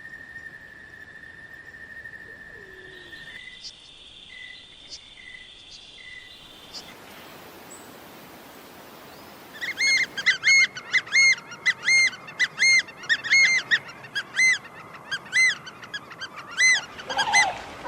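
A bird calling: about halfway through it starts a long, loud series of short chirps, each rising and falling in pitch, about two to three a second. Before that there is a faint steady high tone and a few short notes.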